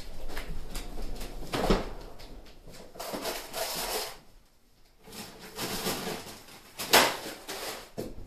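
Off-camera rummaging: irregular knocks and rustling of someone fetching things from a drawer or cupboard, with a sharp knock near the end.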